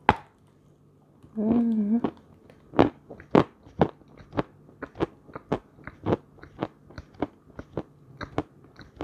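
A bite snapping off a piece of dry edible clay, a short hummed 'mmm', then steady crunchy chewing of the clay, about two crunches a second.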